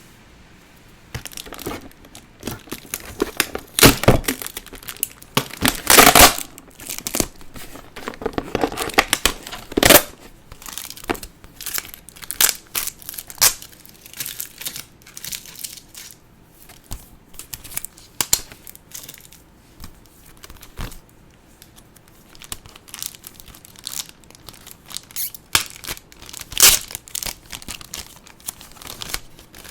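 Doll packaging being handled and opened by hand: irregular crinkling and tearing, with louder rustles and rips in the first third and again near the end.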